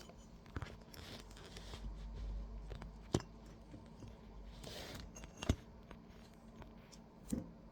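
Faint clicks and taps of small laptop screws and parts being handled, with a few sharper clicks, the strongest about three and five and a half seconds in.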